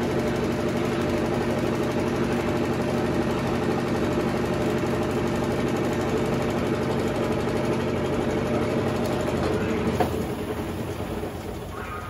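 Consul CWS12 12 kg washing machine running with a steady motor hum. A click about ten seconds in, after which the sound dies away.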